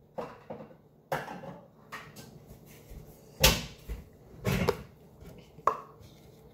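Kitchen cupboard and plastic food container being handled: a string of separate knocks and clunks, the loudest about three and a half seconds in.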